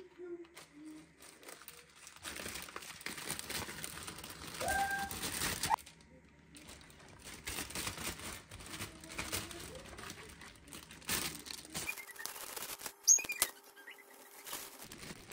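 Irregular rustling and crinkling of close handling noise, with a few short bird chirps and one sharp click near the end.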